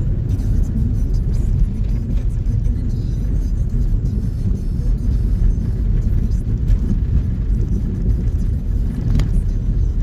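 Steady low rumble of a vehicle driving over a snow-covered road, heard inside the cabin: engine and tyre noise, with a faint click about nine seconds in.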